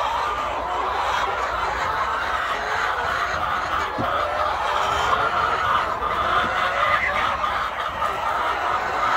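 Many laying hens clucking and calling at once, their voices overlapping in a continuous chorus.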